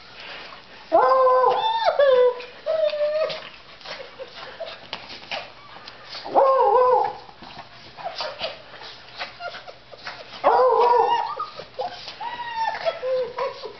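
Pet dogs whining and howling in excited greeting: long, high, wavering cries in three bouts, about a second in, around six seconds and from about ten seconds, with small clicks and rustles between.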